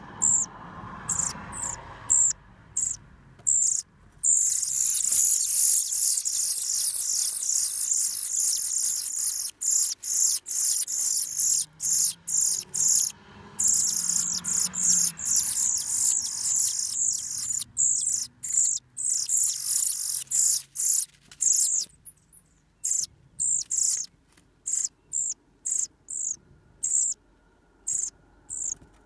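European pied flycatcher nestlings begging in the nest with short, very high-pitched peeps. The peeps thicken into a dense, almost continuous chorus from about four seconds in, during a feeding visit by the adult male, and thin out to scattered single peeps in the last several seconds.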